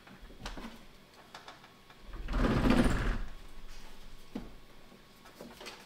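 The boxed-up enclosure of a Bambu Lab P1S 3D printer being slid and turned on a wooden table: a loud scraping rub about two seconds in that lasts about a second, with a few light knocks and clicks from handling before and after.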